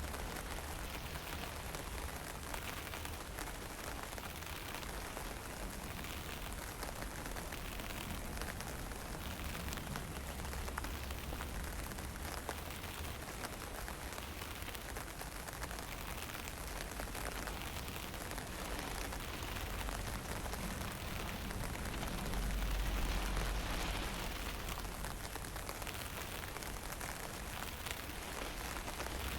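Fine drizzle falling with wind, a steady hiss over a low wind rumble on the microphone that swells in a stronger gust about three quarters of the way through.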